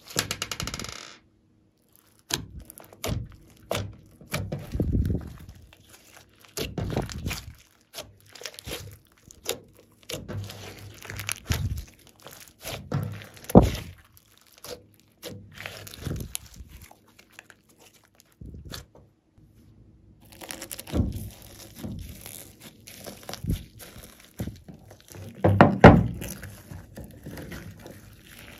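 Hands squishing and kneading glossy slime, making irregular wet squelches and sharp sticky pops. After a short pause about two-thirds of the way through, the squishing resumes in slime packed with foam beads.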